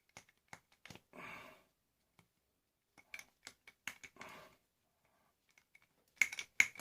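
Hand cutters snipping through the thin steel around a microwave magnetron's copper core: sharp metal clicks and short crunching cuts in three clusters, the loudest near the end.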